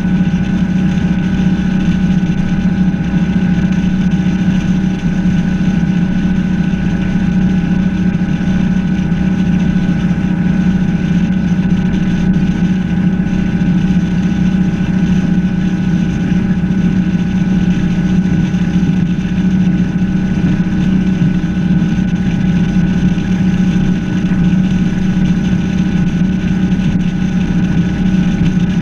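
The 21-foot Chaparral bowrider's engine running steadily while the boat is underway, a constant drone with no change in speed.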